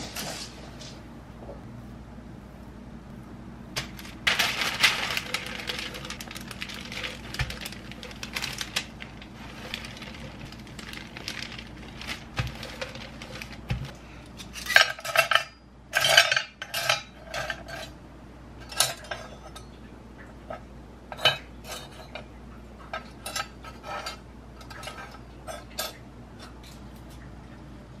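Spatula scraping and mixing cookie dough in a glass bowl, followed by a series of sharp, ringing clinks of kitchen utensils, some in quick runs.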